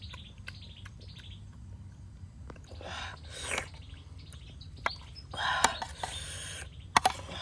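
Birds chirping faintly over a low steady background. A metal spoon scrapes through sauce on a plate twice, with a few sharp clicks.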